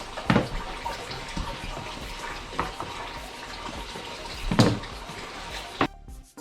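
Water running steadily from a kitchen tap, with a few short knocks of things being handled.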